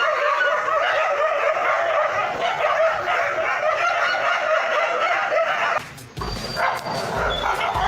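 A dog whining and yelping without a break for about six seconds, its pitch wavering, then a short pause and a jumble of knocks and low rumbles.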